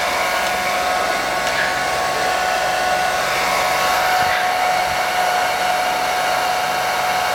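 Blow dryer running steadily while drying a dog's coat: an even rush of air with a steady motor whine.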